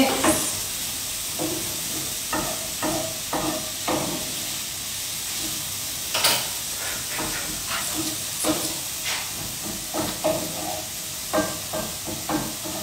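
Courgette and garlic frying in a pan on the hob: a steady sizzling hiss, with scattered clicks and taps of a utensil stirring against the pan.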